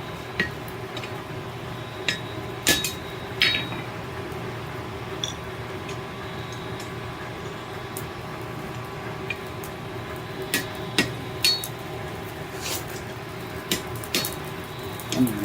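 Scattered, irregular metal clinks and clanks of smithing tools and hot steel at a forge, heard over a steady hum.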